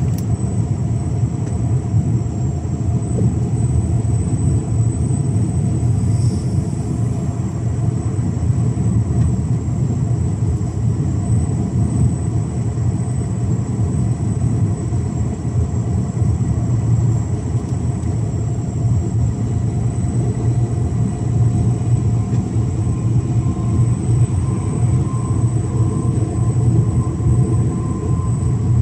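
Mercedes-Benz Actros 1853 truck running steadily at cruising speed, its diesel engine and rolling noise forming an even low rumble.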